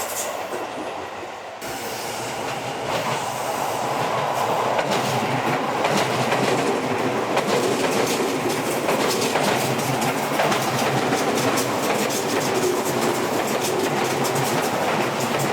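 Seibu 6000 series aluminium-bodied electric train running past, its wheels clacking over the rail joints in a quick, dense stream. It grows louder over the first couple of seconds, then holds steady.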